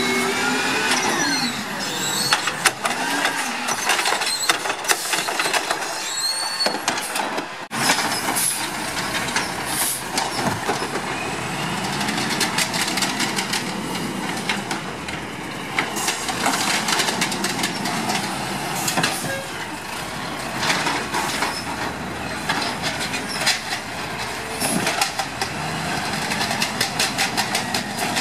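Rear-loading garbage truck running, its hydraulics whining while a cart is tipped into the hopper. After a sudden break about eight seconds in, an automated side-loading garbage truck's engine runs while its arm lifts and dumps carts, with many sharp knocks and clatter of trash and carts.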